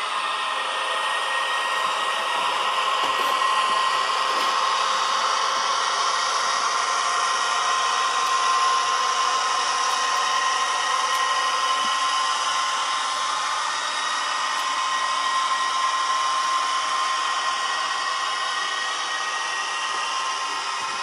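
H0 model trains running on the layout: a steady whir of small electric locomotive motors and wheels rolling on the rails, with a thin steady whine.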